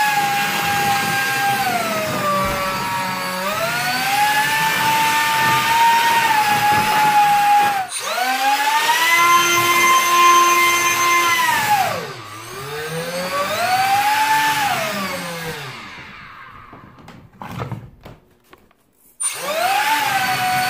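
3D-printed RC hovercraft's electric motor and 3-inch propeller whining, its pitch rising and falling as the throttle is changed. It winds down to a stop about sixteen seconds in, leaving a few faint clicks, then spins back up near the end.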